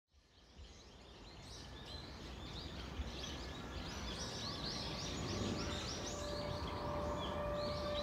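Forest ambience fading in: many birds chirping in quick repeated calls over a low rumble. About halfway through, a steady ringing tone comes in and holds.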